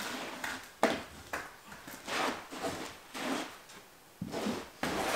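Scraping and knocking of hand work with stone and mortar: a sharp knock a little under a second in, then several scrapes and shuffles.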